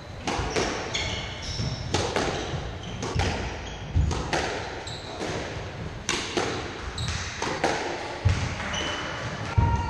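A squash rally: repeated sharp cracks of the ball struck by rackets and slapping off the court walls, with short squeaks of court shoes on the wooden floor. A few heavier thuds come about four seconds in, and twice near the end.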